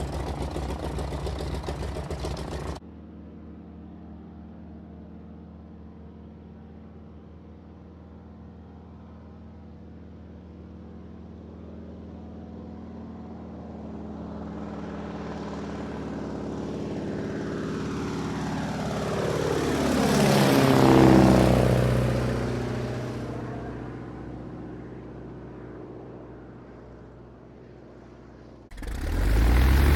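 Propeller airplane flying over: its engine note grows slowly, peaks about two-thirds of the way through with a falling pitch as it passes, then fades away. It is preceded by a loud engine sound that cuts off abruptly near the start, and another loud engine sound starts suddenly near the end.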